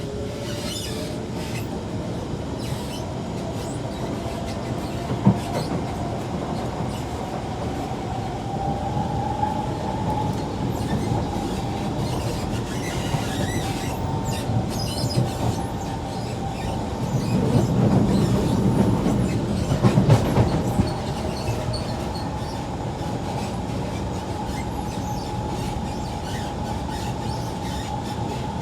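Kawasaki C151 metro train running at speed, heard from inside the car: a steady whine rises in pitch over the first several seconds and then holds, over continuous wheel-on-rail noise. A little past the middle the track noise grows louder for a few seconds, with a few sharp knocks.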